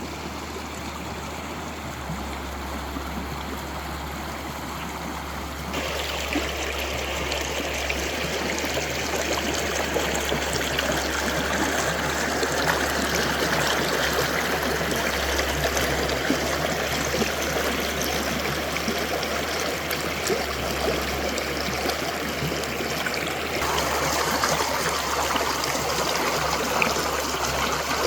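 Steady rushing of water, without a pitch, getting louder and brighter about six seconds in and shifting in tone again near the end.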